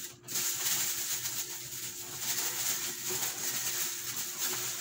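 Steady hiss with a faint low hum underneath, no clear events.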